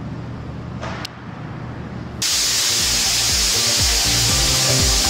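Abrasive sandblasting nozzle blasting a painted metal deck ceiling: a loud, steady hiss that starts abruptly about two seconds in, after a low hum. Music plays underneath.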